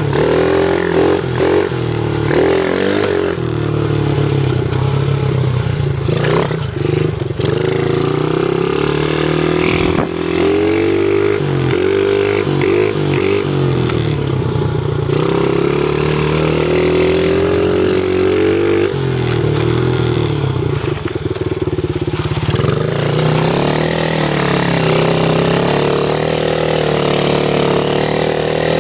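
Dirt bike engine revving up and down again and again, its pitch rising and falling, as the bike is spun in donuts.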